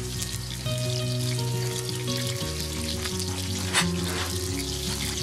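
Egg-battered fish fillets sizzling and crackling as they shallow-fry in hot oil in a wok, with one louder pop about four seconds in. Background music with held notes plays underneath.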